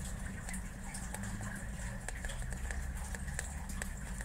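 Faint handling noise of a paper instruction booklet: scattered small clicks and crackles over a steady low hum.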